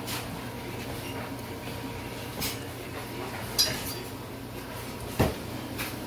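Kitchen utensils knocking against pots and dishes: three short clinks and knocks about a second apart, the middle one ringing and the last one a dull thump, over a steady low hum.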